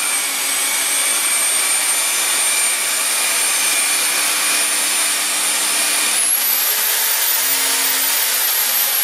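Corded electric hand drill with a flat wood bit boring into a wooden plank. The motor gives a steady high whine over the noise of the bit cutting. About six seconds in the whine rises in pitch, and near the end it starts to drop.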